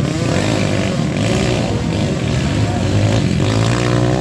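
Engines of small racing motorcycles revving hard as they ride past on a dirt track, one climbing in pitch near the end.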